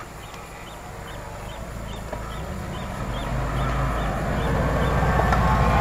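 An off-road vehicle's engine coming down toward the microphone, its low note growing steadily louder from about halfway through. A faint short high chirp repeats about three times a second in the first half.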